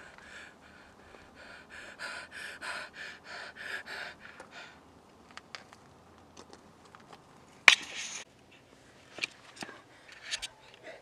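A person panting rapidly, about three or four short breaths a second, for the first four seconds or so. After that come a few scattered clicks and one sharp, loud knock about three-quarters of the way through.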